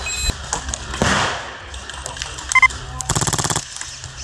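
Airsoft gun firing one short full-auto burst about three seconds in: a rapid, even rattle of shots lasting about half a second. Scattered single clicks and pops of other airsoft fire come before it.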